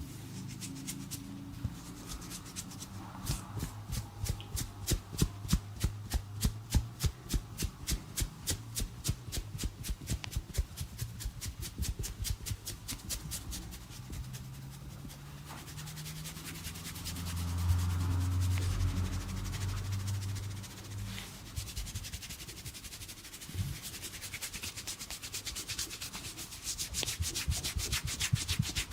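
A barber's hands rubbing briskly in a massage, in a steady rhythm of about two strokes a second that quickens near the end. A low hum rises and fades about two-thirds of the way through.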